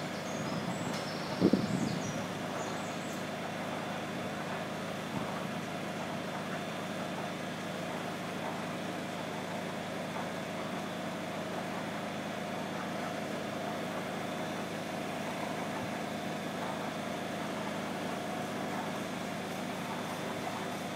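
Mobile crane's diesel engine running steadily during a heavy lift, with one loud knock about a second and a half in.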